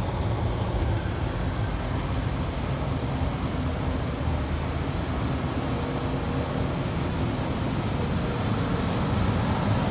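V10 engine idling steadily with a misfire from a bad ignition coil on cylinder number 1.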